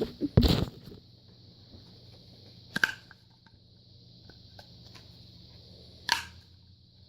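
A few loud knocks and clatter in the first second, then two sharp single clicks about three seconds apart over a faint steady hiss.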